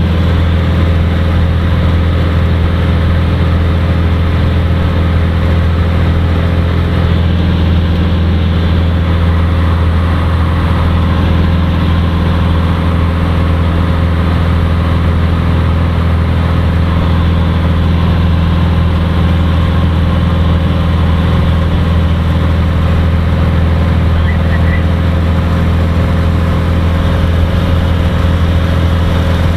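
Cirrus SR20's four-cylinder Lycoming IO-390 piston engine and propeller running at a steady, even power setting, heard from inside the cockpit as a loud, constant drone.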